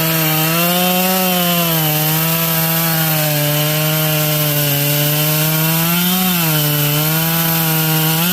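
Husqvarna 572 XP two-stroke chainsaw running at high throttle while cutting through a wood round, its engine pitch held down by the load. The pitch rises briefly twice, about a second in and near six seconds in, as the load eases.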